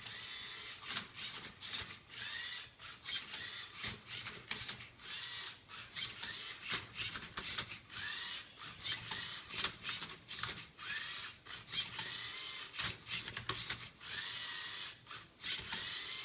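LEGO Mindstorms EV3 MindCub3r robot turning and flipping a Rubik's Cube. Its motors whir in short stop-start bursts, some with a rising whine as they spin up, and the plastic cube clicks and scrapes as its layers are turned.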